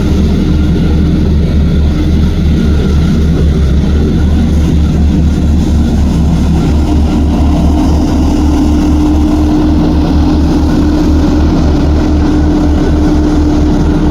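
Heavy diesel earthmoving machine running steadily under load, with a deep pulsing drone. A steady whine joins about halfway through.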